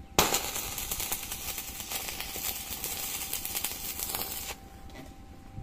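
Stick-welding arc struck with a coated electrode, crackling steadily for about four seconds as a hex nut is welded to a steel plate, then stopping abruptly when the arc is broken.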